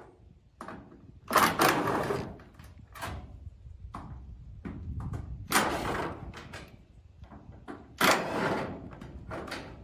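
Hand tool worked against a corrugated iron wall sheet: three loud, sudden bursts of metallic noise, each fading over about a second, with smaller knocks between them.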